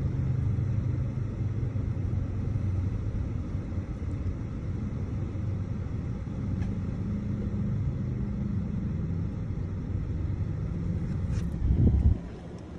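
Car engine and road noise heard from inside the cabin: a steady low drone. A loud low thump comes near the end, and then the sound drops off suddenly.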